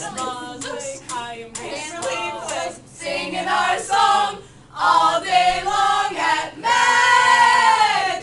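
Young voices singing a cappella in short sung phrases, building to one long held note near the end.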